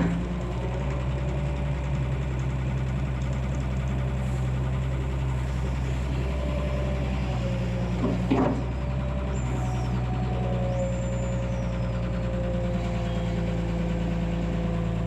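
Excavator's diesel engine running steadily, with one short clank a little past halfway.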